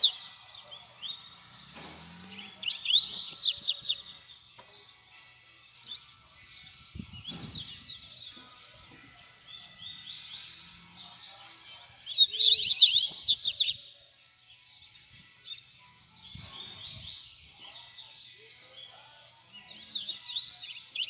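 Caged seedeaters (coleiro and papa-capim) singing: short bursts of fast, high twittering notes, each phrase lasting one to two seconds and repeated every few seconds.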